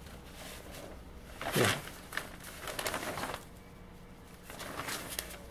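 Large newsprint fanzine pages rustling and crinkling as they are handled and turned to a new spread, in a few separate spells of rustling. A short low sound falling in pitch comes about one and a half seconds in.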